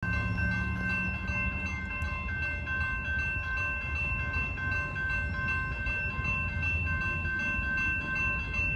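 Railroad grade-crossing warning bell ringing steadily in a fast, even pulse while the crossing gates are down, warning of an approaching train. A low rumble runs underneath.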